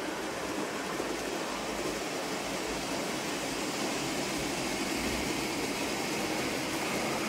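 OO gauge model train rolling along the layout track, a steady rumble of wheels on rail as a long rake of hopper wagons passes.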